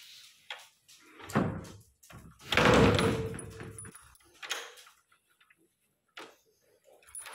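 A glass sliding door rolling along its track: a loud rumble about two and a half seconds in that lasts about a second and a half, with shorter knocks and shuffles before and after it.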